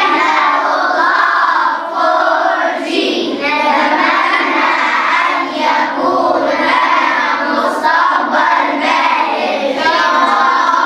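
A group of schoolchildren singing together in unison, loud and continuous.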